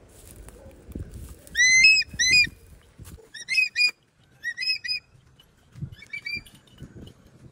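Eagle calling: a string of loud, high yelps that each rise then level off, coming in twos and threes and growing fainter near the end.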